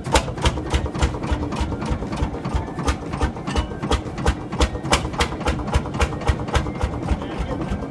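Lanz Bulldog's single-cylinder two-stroke hot-bulb engine running slowly, freshly hand-started, with an even knocking beat of about four firing strokes a second.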